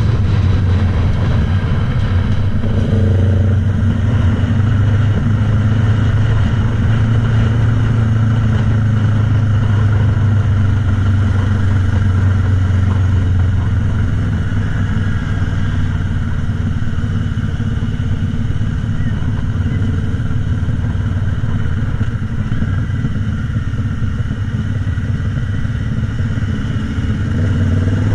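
Motorcycle engine running steadily while riding, recorded close from the bike itself with road noise. The engine note eases about halfway and strengthens again near the end.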